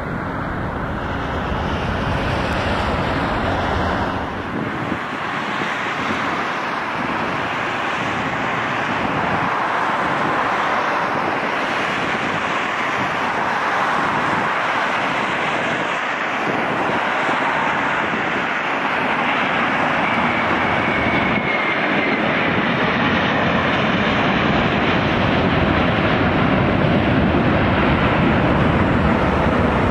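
Jet airliner engines: a regional jet rolling out on the runway for the first few seconds, then a Boeing 737's jet engines as it comes in on final approach and lands, a steady rush with a faint whine, a little louder near the end.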